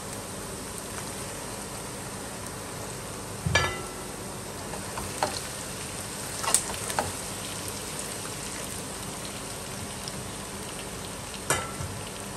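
Onions, ginger-garlic paste and okra frying in oil in a nonstick pan, a steady sizzle. A spatula stirring the pan gives a few short knocks and scrapes, the loudest about three and a half seconds in.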